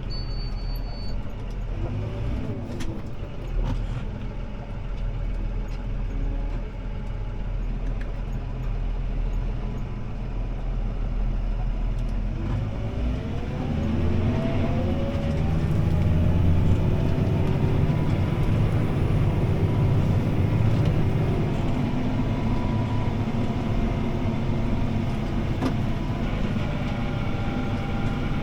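CLAAS ARION 650 tractor's six-cylinder diesel engine running, heard from inside the cab. About halfway through, the engine speed rises, its pitch climbing over a few seconds, then holds steady and a little louder.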